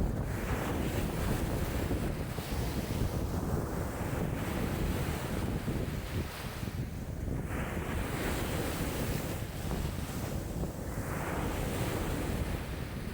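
Wind-driven lake waves in a strong wind of about 5 m/s, with the wind rumbling steadily on the microphone. Three louder swells of splashing water come about a second in, around seven seconds and around eleven seconds.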